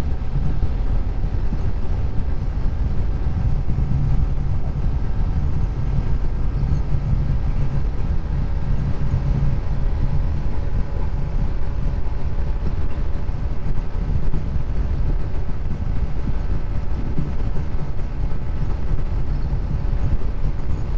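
Honda SP 125's single-cylinder engine held flat out at top speed, a steady engine tone under heavy wind rumble on the microphone.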